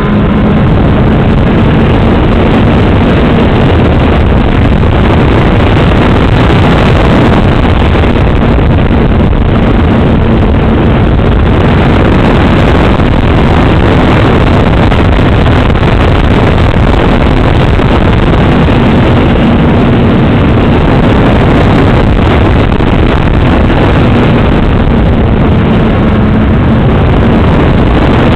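Loud, steady rush of wind and propeller noise on the onboard camera microphone of an FPV model aircraft in flight, with a faint motor hum that comes and goes.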